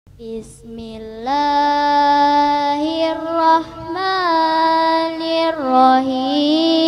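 A boy reciting the Qur'an in the melodic chanted style, starting just after the opening silence and holding long, wavering notes that glide slowly up and down between breaths.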